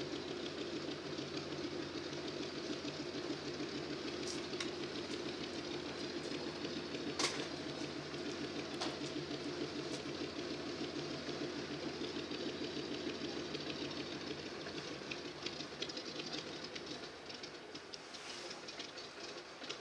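Zero fighter's Pratt & Whitney radial engine idling steadily, then fading away as it is shut down near the end.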